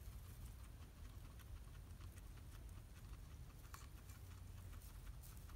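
A guinea pig chewing hay close to the microphone: a rapid, faint run of small crunching clicks.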